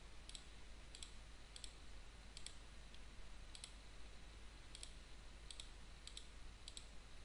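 Faint computer mouse clicks, about ten at uneven intervals of roughly half a second to a second, each placing a vertex of a spline line as an outline is traced, over a low steady hum.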